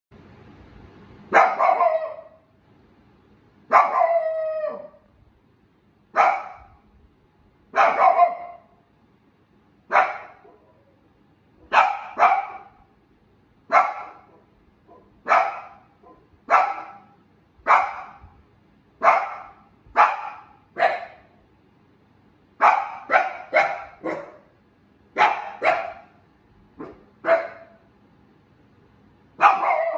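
A young Shiba Inu barking over and over, about twenty sharp barks spaced a second or two apart, some in quick pairs. The barks come faster in the second half, and the second bark, near four seconds in, is drawn out.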